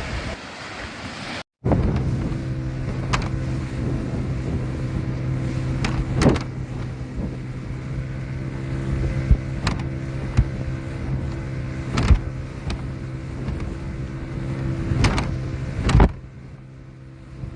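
An engine running at a steady speed as a low, even hum, with several sharp knocks over it. The hum drops away about 16 seconds in.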